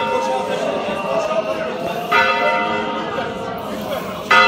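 A church bell tolling slowly, one stroke about every two seconds, each stroke ringing on until the next: a funeral toll.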